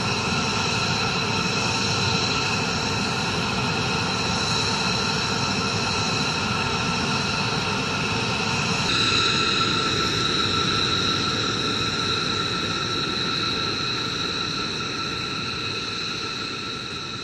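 B-2 Spirit bomber's jet engines idling on the ground: a steady rush with several high whistling tones. The sound changes abruptly about nine seconds in, then fades out toward the end.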